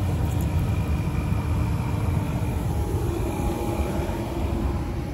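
Farm machinery running steadily: a continuous low mechanical drone with a few faint held tones over it, with no change in speed.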